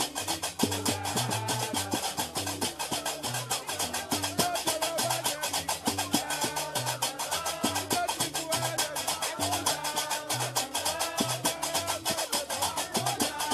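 Gnawa music: a repeating low guembri bass pattern under a fast, even clatter of qraqeb metal castanets, with a wavering melody line entering about four seconds in.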